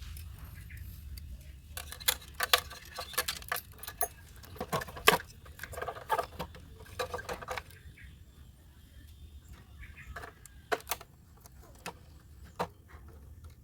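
Quick small clicks and taps of hands working cables and a screwdriver into the terminals of an autogate control box, a dense flurry for several seconds and then a few single clicks, over a steady low hum.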